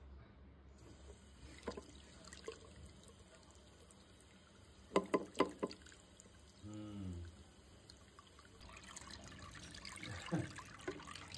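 Water pouring, trickling and dripping while sprouting alfalfa seeds are rinsed, with small clicks and knocks of handling. The loudest is a quick run of clicks about five seconds in.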